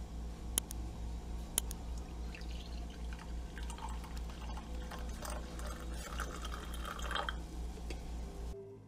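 Capsule coffee machine dispensing coffee into a ceramic mug: the stream pours and fills the mug for several seconds over the machine's low, steady pump hum, which cuts off near the end. Two sharp clicks come in the first two seconds.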